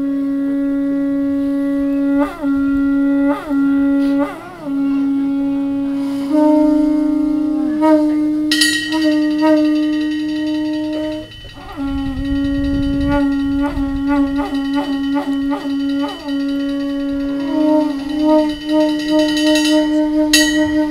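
Two horagai (Japanese conch-shell trumpets) blown together in long sustained calls near one pitch, with short breaks and falling slides at the ends of breaths. The notes turn to quick pulses in the second half.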